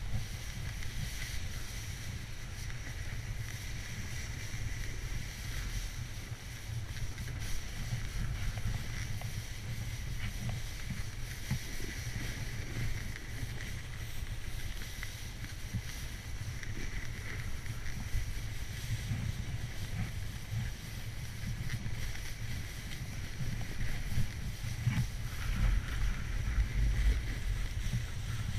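Wind rumbling on a GoPro action camera's microphone during a downhill run on wet snow, over a steady hiss of gliding across the snow. The rumble gets stronger and more uneven near the end.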